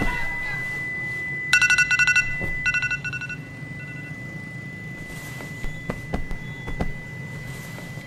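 Smartphone alarm going off in two bursts of rapid electronic beeps, about a second and a half in and again near the three-second mark. A thin steady high tone runs underneath, and a few soft clicks follow later.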